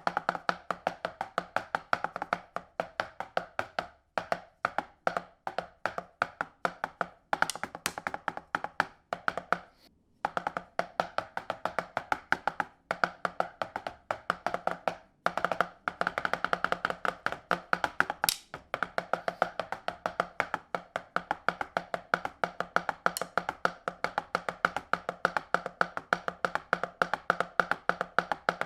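An unplugged electric drum kit being played: its pads are struck in fast, dense runs, giving a soft, dry tapping clatter rather than a drum sound. The runs break off briefly a few times.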